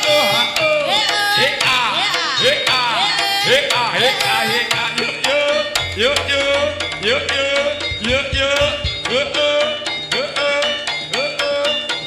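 Live jaranan accompaniment from an East Javanese gamelan-style ensemble: rapid hand-drum strokes under steady held tones and repeated swooping, gliding melodic notes. A low booming joins in about halfway through for a few seconds.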